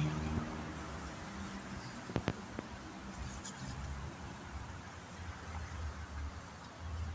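Street traffic on wet pavement: a steady hiss of tyres and the low rumble of passing cars, with a couple of sharp clicks about two seconds in.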